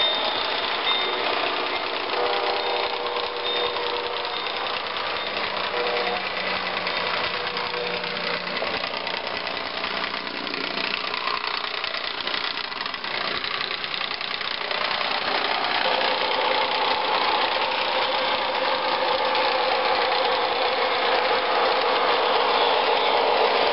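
MTH O-gauge model train running on three-rail track: a steady rumble of the wheels mixed with the locomotive's onboard digital engine sound. It grows a little louder and more tonal from about two-thirds in.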